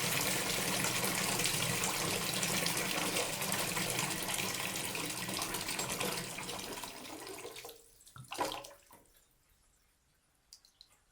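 Bathtub tap running into a filling tub, a steady rush of water that dwindles and stops about seven or eight seconds in. A brief splash or gurgle follows, then a few faint drips.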